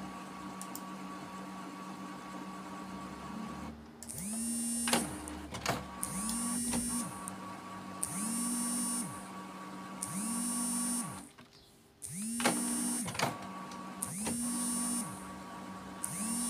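Canon Maxify MB2340 inkjet printer printing during nozzle maintenance. A steady motor hum runs for the first few seconds, then the print head carriage sweeps across about every two seconds, each pass a short rising whine. The printer goes quiet briefly about two-thirds of the way through.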